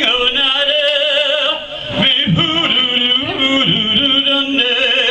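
A man singing an Irish folk song unaccompanied into a microphone, holding long notes with a wide vibrato, with a short break for breath about two seconds in.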